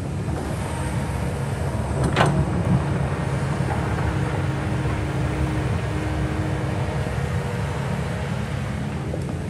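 Kobelco excavator's diesel engine running steadily, with one short, sharp noise about two seconds in.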